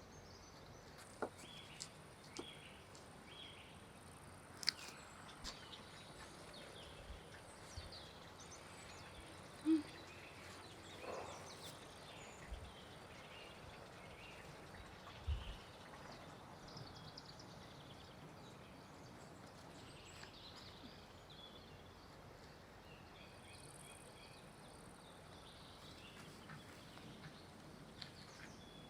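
Faint outdoor background with scattered bird chirps and a few brief knocks and clicks, the loudest a short knock about ten seconds in.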